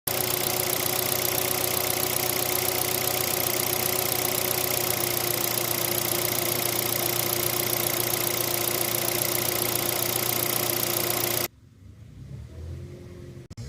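Car engine running at idle, heard close up as a loud, steady noise with a constant hum. It cuts off abruptly near the end to a much quieter background.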